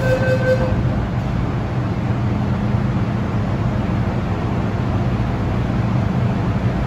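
MTR Kwun Tong Line M-train running, heard from inside the car: a steady rumble of wheels and running gear with a low hum. A steady high tone stops under a second in.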